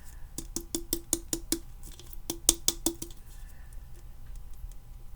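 Small plastic craft container being shaken by hand, giving quick sharp clicks about six a second in two short runs.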